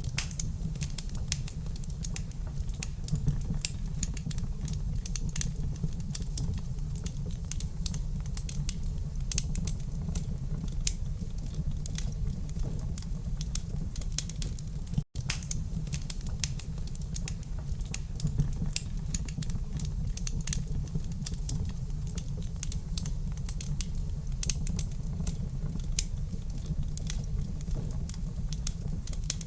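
Wood fire crackling in a fireplace: a dense, irregular stream of small pops and snaps over a low steady rumble. The sound cuts out for an instant about halfway through.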